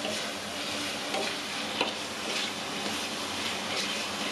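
Ground spice paste sizzling as it fries in an aluminium wok, stirred with a spatula that scrapes the pan, with a few sharp clicks of the spatula against the metal. The paste is being sautéed until cooked through.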